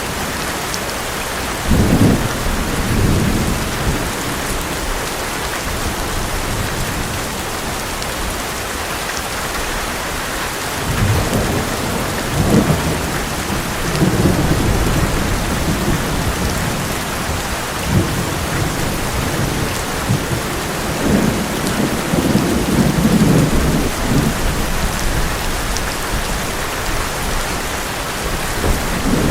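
Heavy rain pouring steadily on an old metal roof, with thunder rumbling several times: once about two seconds in, then longer rolls in the middle and toward the end.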